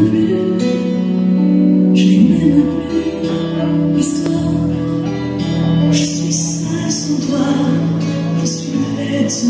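Music with singing, with a soft accent about every two seconds.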